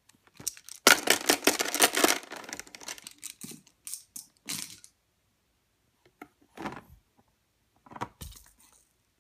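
Hard plastic baby toys rattling and clacking: a quick run of rattling for about a second, then a few single knocks of toys against a plastic seat tray.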